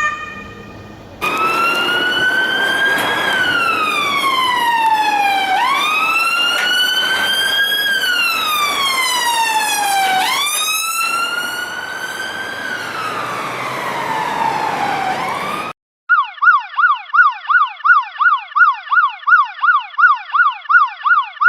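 Police sirens. A wailing siren glides slowly up and down, one cycle about every five seconds, over a background hiss. After a brief break it changes to a fast yelp, sweeping about three times a second.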